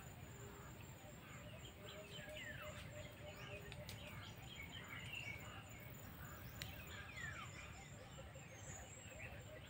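Faint mixed chorus of wild birds chirping and calling, with two clear falling whistles, over a steady high insect drone.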